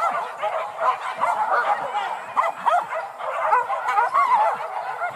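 A pack of hunting dogs on a wild boar hunt yelping and barking, many rapid high calls overlapping without a break.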